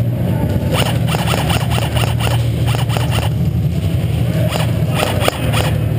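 Airsoft gunfire: rapid rattling strings of sharp cracks from about a second in until past three seconds, and a few more near the end, over a steady low hum.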